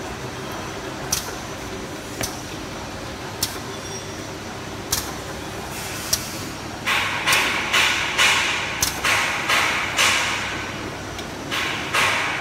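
Automatic tin-filling and capping line running: a steady machine din with sharp clicks about once a second. From about seven seconds a run of short hissing bursts, a few a second, pauses briefly near eleven seconds and starts again.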